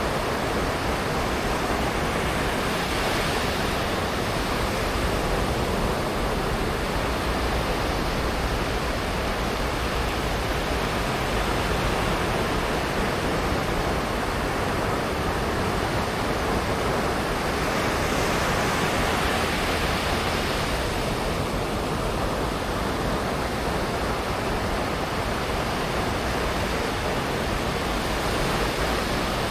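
Ocean waves breaking and washing up on a sandy beach in a constant rush of surf, swelling a little louder twice, about three seconds in and again around twenty seconds in.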